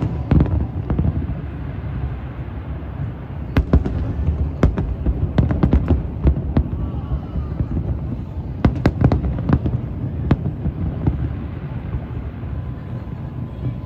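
Fireworks going off: sharp bangs in irregular clusters over a steady low rumble, with voices of a crowd underneath.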